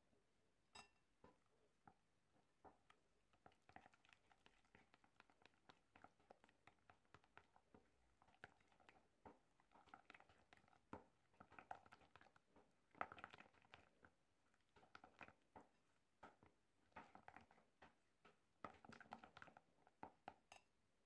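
Faint wet squelching and soft taps of a spatula stirring coffee into thick mascarpone cream in a ceramic bowl, in irregular strokes that get busier about halfway through and again near the end.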